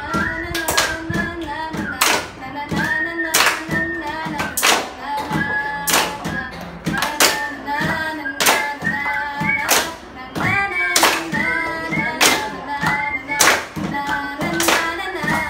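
A group of schoolchildren singing together, accompanied by hand claps and taps on a wooden desk that keep a steady beat.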